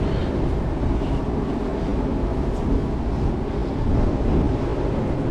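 Steady wind noise buffeting the microphone on an open ship's deck: a low, rumbling rush with no distinct events.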